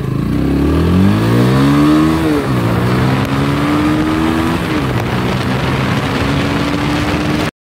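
Loncin GP 165's 165 cc oil-cooled single-cylinder engine accelerating hard through the gears under way: revs climb, drop at a gear change about two and a half seconds in and again near five seconds, then climb once more, with wind rushing over the microphone. The sound cuts off abruptly near the end.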